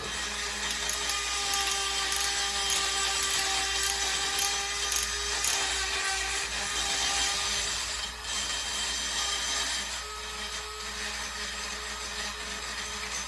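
Small power tool spinning a wire wheel, scrubbing rust off a brake caliper mounting bracket: a steady motor whine over harsh scraping. It drops off about eight seconds in and carries on more quietly after that.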